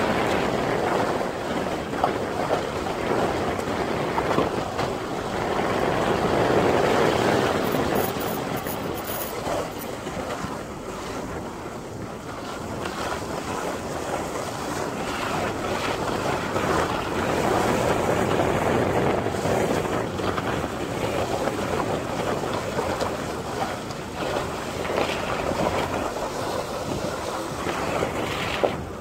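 A vehicle driving slowly: steady engine and tyre rumble on a wet road, heard from inside with wind buffeting the microphone. There are a few light knocks, one about two seconds in and one near the end.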